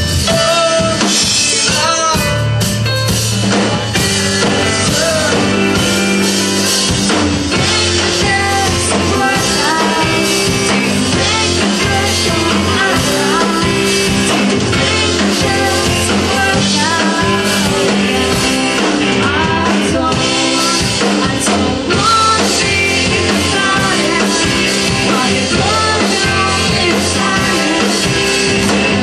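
A rock band playing live through a PA: electric guitar, bass and drum kit, with a male lead voice singing.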